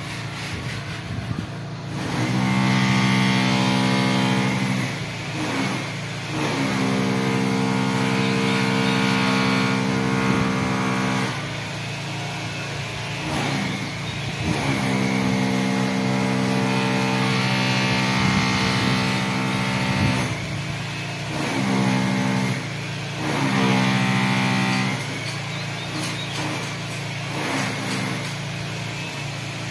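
An engine idling, repeatedly revved up and held at a higher, steady speed for a few seconds at a time, then let back down.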